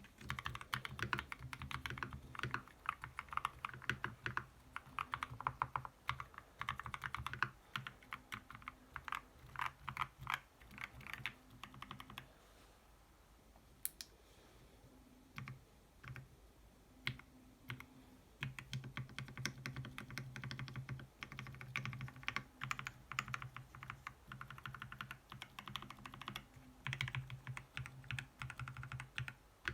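Typing on an FL-Esports MK870 mechanical keyboard with tactile Kailh Speed Copper switches and PBT keycaps: fast, continuous keystrokes, thinning to a few scattered presses for several seconds midway before the fast typing resumes.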